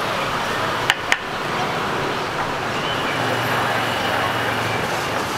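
Busy street ambience: steady traffic noise with voices in the background, and two sharp taps close together about a second in.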